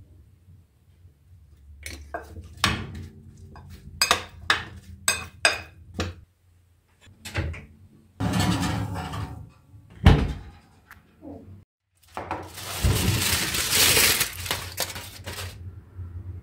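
Dishes and cutlery being set down, a run of clinks and knocks about two seconds in, and a heavier knock near the middle. Two longer rushing noises come after them, the second the loudest.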